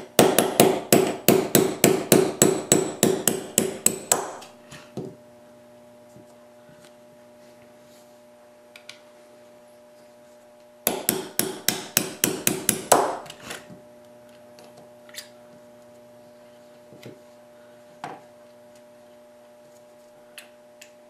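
Small hammer tapping a pin punch to drive pins out of a Smith & Wesson M&P pistol frame: a quick run of about twenty light metallic strikes, about five a second, then a pause and a second shorter run of strikes about eleven seconds in. A few scattered light clicks of small parts being handled follow.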